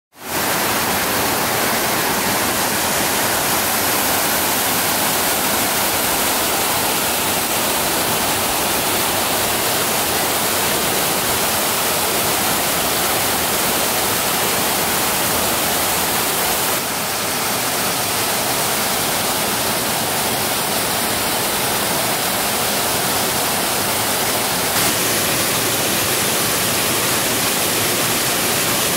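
Small waterfall pouring into a stream pool: a steady, close rush of falling water that barely changes, dipping slightly in level about 17 seconds in.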